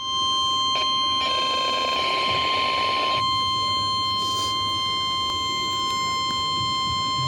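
NOAA Weather Radio's 1050 Hz warning alarm tone, one steady, loud, unbroken beep that signals a warning is about to be read. A patch of static hiss sits under it from about one to three seconds in.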